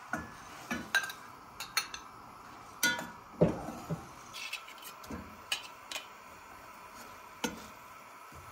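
A metal spoon knocking and scraping against a ceramic bowl and an enamel saucepan, a dozen or so irregular clinks and knocks as barberries are spooned into the pan and stirred.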